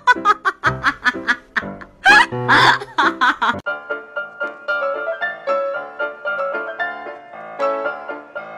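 Background music: a fast, choppy track for about the first three and a half seconds, then a sudden change to a light, plinking piano tune.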